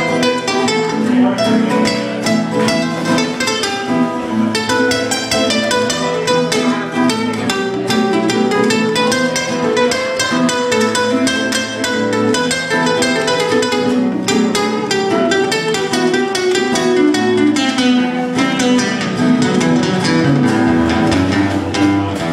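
Two acoustic guitars playing an instrumental piece together, with quick picked notes over strummed chords.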